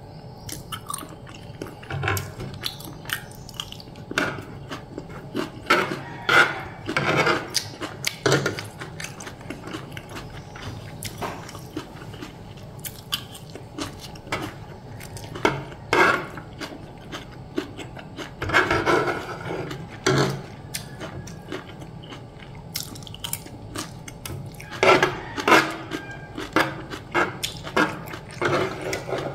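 Close-up eating sounds: a person chewing and crunching food, with a metal spoon and fork clinking and scraping on a tray. The sounds come in irregular clusters of short crunches and clicks.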